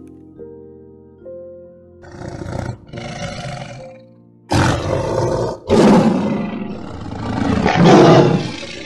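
Tiger roaring and growling in four rough bursts, the last one long and loudest near its end, with soft background music in the first couple of seconds.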